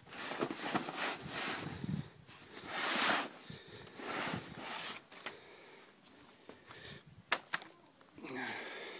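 Stern frame section of a Tyne folding kayak being tugged free of the hull, with scraping and rustling of the frame against the hull skin in uneven bursts. A couple of sharp knocks come near the end.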